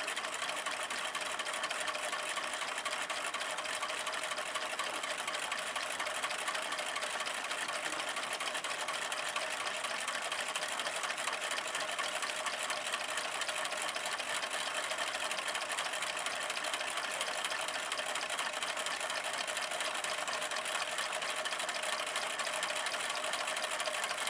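Several homemade drinks-can Stirling engines running together on hot water: a fast, steady mechanical rattle from their wire cranks and moving parts.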